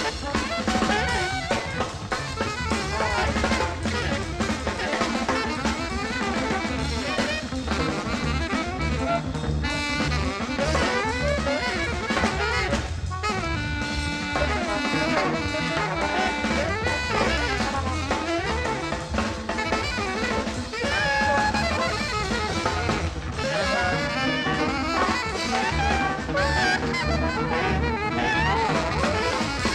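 Jazz music: wind-instrument melody lines over low bass and a drum kit, busy and unbroken throughout.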